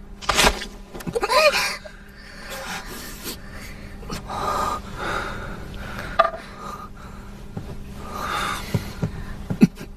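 A man's sharp gasps and heavy breaths of pain, held back rather than cried out, as a wound is treated.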